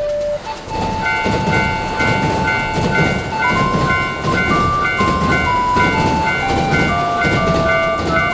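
Japanese railroad crossing warning bell ringing "kan kan", two alternating tones about twice a second starting about a second in, over the running rumble of a train. A simple plinking melody plays along.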